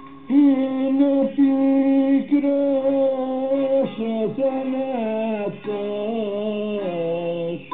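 A singer in a rebetiko song holds long notes in one slow phrase that steps down in pitch.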